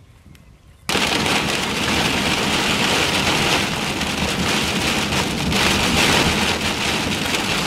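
Heavy rain pelting a vehicle's windshield and roof, heard from inside the vehicle: a loud, dense patter that begins abruptly about a second in.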